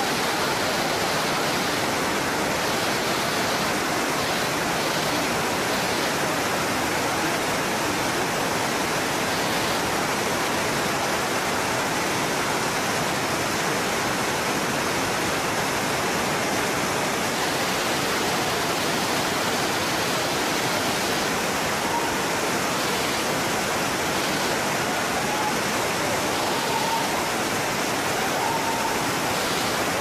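Waterfall: a steady, even rush of water falling over rock.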